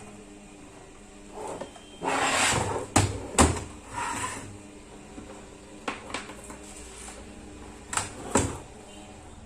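Bench handling noise while input cables are hooked up to an amplifier: a short rustle, then several sharp clicks and knocks in pairs, about three seconds in and again near eight seconds.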